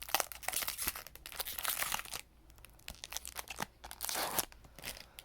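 Crinkling and rustling of a foil Pokémon booster pack and its cards being handled: a dense stretch for about two seconds, then scattered softer crinkles and a short burst about four seconds in.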